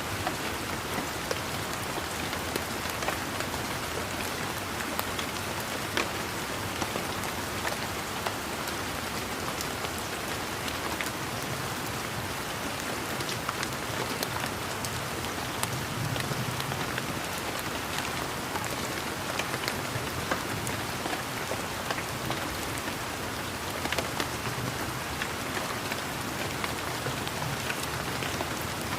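Steady rain falling, with a soft patter and many scattered single drops ticking sharply close by.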